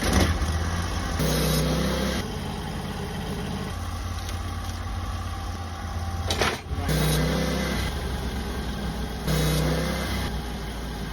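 Sawmill engine running steadily as a walnut log is milled, its hum growing louder for a second or so a few times, with one sharp knock about six and a half seconds in.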